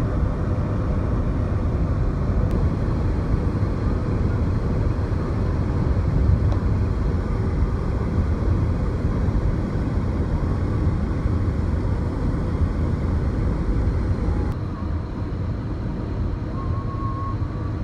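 Steady rumble of road and wind noise from a car driving along a highway, heard from inside the car. About three-quarters of the way through it steps slightly quieter.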